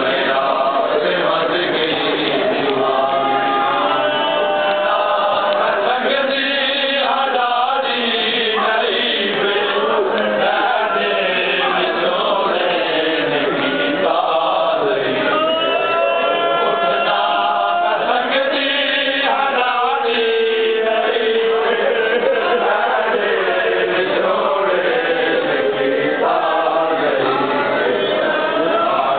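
Voices chanting a noha, a Shia mourning lament, in continuous unison recitation.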